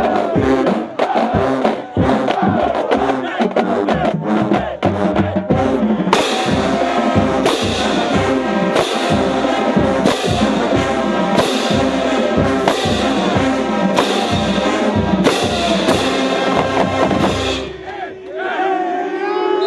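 Marching band playing brass and drums, with a cymbal crash about every second and a half from about six seconds in. The music cuts off near the end and voices shout.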